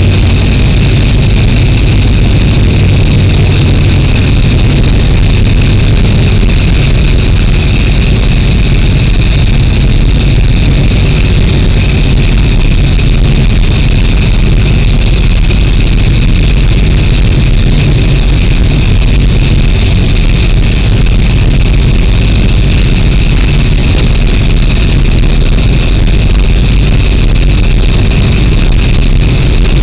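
A train's engine running steadily and loudly, heard from inside the driver's cab, with a steady high-pitched whine over the low rumble.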